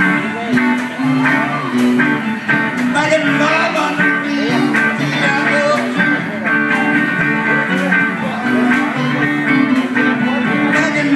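Live band playing, with electric guitars and a keyboard.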